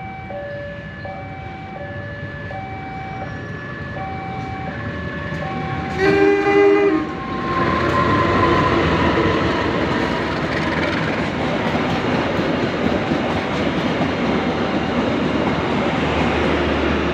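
A level-crossing warning alarm repeats two alternating electronic tones. About six seconds in, a CC 201 diesel-electric locomotive gives one short, hoarse horn blast, unlike its usual horn, and the train then rumbles and clatters past.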